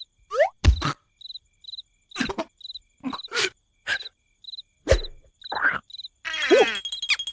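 Cartoon soundtrack sound effects: a chirping insect background repeating short chirps, broken by a series of sharp knocks and quick sliding-pitch sound effects. A sustained tone and dense sound come in about six seconds in, leading into music.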